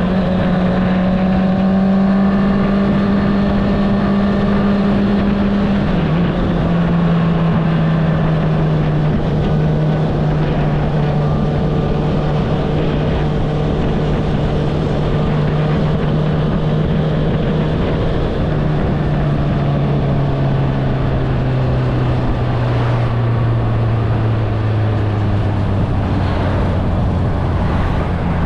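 Honda CBR650R's inline-four engine through an Akrapovic exhaust, running at steady revs under way, with wind rushing past. The engine note steps down in pitch about six seconds in, again around eighteen seconds, and once more near the end.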